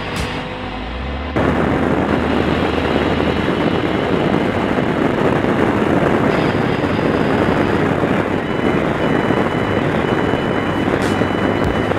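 Heavy wind noise on the camera microphone of a motorcycle riding at road speed, a loud steady rush. It starts abruptly about a second and a half in, cutting off the music before it.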